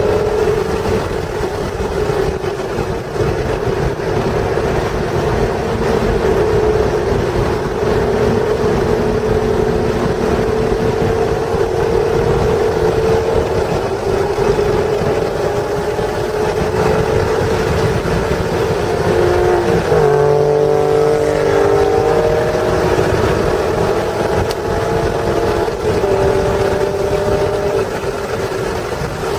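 1996 Acura NSX's stock 3.0-litre V6 pulling hard on track, its note climbing slowly in pitch. About two-thirds through there is a quick gear change, and then it pulls again. Steady road and wind rumble runs underneath.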